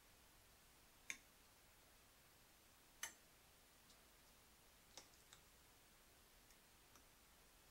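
Metal fork clicking against a glass dish and a bowl while chicken strips are dipped in egg wash and flour: three sharp clicks about two seconds apart, followed by a few fainter ones, over near silence.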